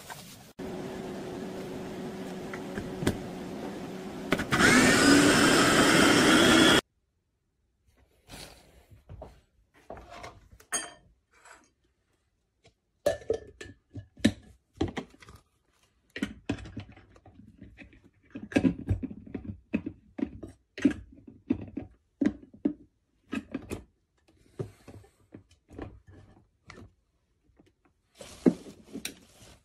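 Electric food chopper motor running steadily, then louder and brighter for about two seconds before cutting off suddenly. Then come scattered clicks and knocks of the bowl and lid being handled, and a short burst of the motor near the end.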